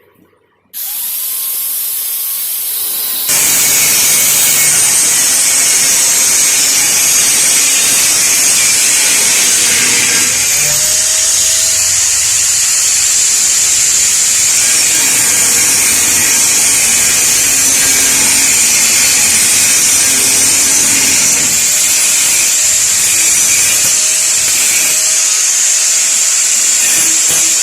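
Angle grinder switched on about a second in and spinning up, then its disc bites into metal a couple of seconds later and grinds steadily with a loud, high hiss.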